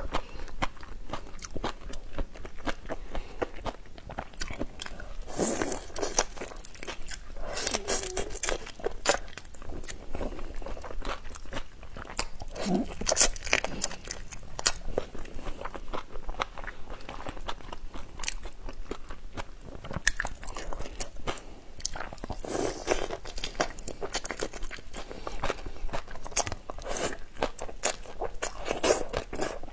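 Close-miked crunching, biting and wet chewing of whole shrimp in their shells, soaked in chili sauce: many short, irregular crunches and clicks.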